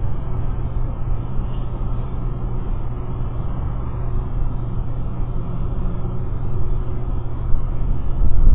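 Steady low rumble of wind and distant city traffic picked up by an outdoor nest-box webcam microphone, swelling louder near the end.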